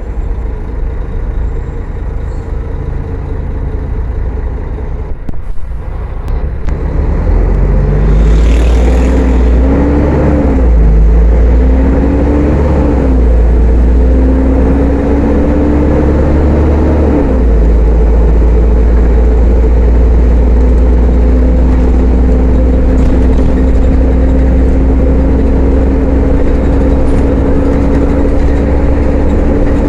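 Mercedes-Benz O500-UA articulated bus's diesel engine pulling away: the engine note climbs, drops back at each shift of the ZF automatic gearbox, three shifts in quick succession, then rises slowly and steadily in a higher gear. At the start the engine is slowing down, with a few light clicks before it picks up.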